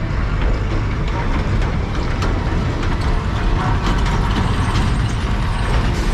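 Continuous rumble of a vehicle travelling over a rough, unpaved dirt road, with rapid rattling and clicking throughout.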